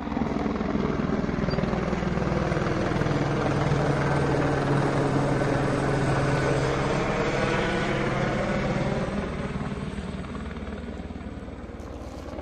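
Helicopter flying low overhead, its rotor and engine running loud and steady, then fading over the last few seconds as it moves away.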